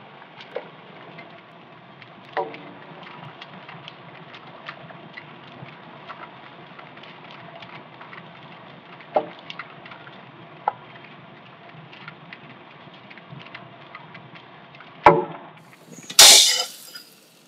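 Water at a rolling boil in a pot of glutinous rice balls: a steady bubbling, with a few light knocks from a stirring spoon. About two seconds before the end comes a sharp knock, then a brief loud rushing burst.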